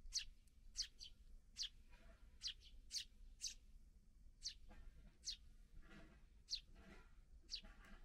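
Eurasian tree sparrows chirping: about a dozen short, sharp chirps at irregular intervals, each dropping quickly in pitch, some coming in quick pairs.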